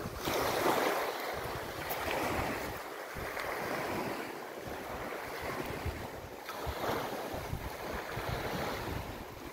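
Wind buffeting the microphone, a rushing noise that rises and falls in gusts.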